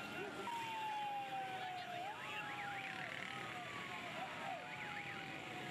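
Vehicle siren wailing: the pitch jumps up quickly and then falls slowly, repeating about every two and a half seconds, with a second, faster up-and-down tone between wails. Underneath is a steady wash of crowd and traffic noise.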